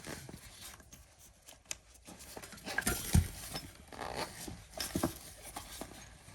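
Handling noise as items are unpacked by hand: rustling with scattered small clicks and knocks, and one louder knock about three seconds in.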